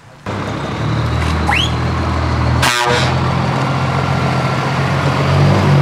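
Scania truck's diesel engine running steadily as the truck pulls away, coming in abruptly just after the start. A short blast of the truck horn sounds about two and a half seconds in.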